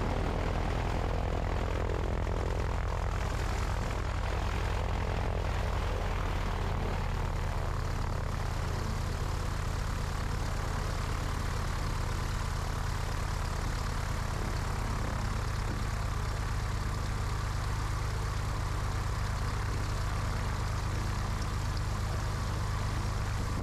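Cessna 172B's piston engine and propeller running steadily at low taxi power, an even low drone that shifts slightly in pitch about seven seconds in.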